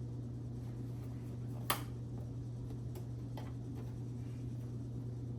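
A sharp click a little under two seconds in, then a couple of fainter clicks about a second later, over a steady low hum. The clicks come from handling a desktop computer's case and parts.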